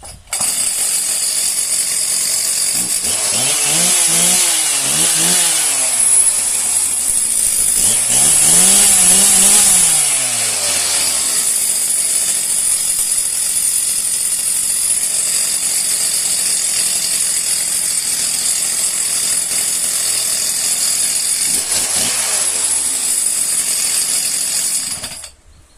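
Stihl MS 361 two-stroke chainsaw running loudly at idle, revved up and back down several times: two quick blips, a longer rev a few seconds later and one more blip, then it cuts off near the end. The saw runs cleanly and is said to be in full working order.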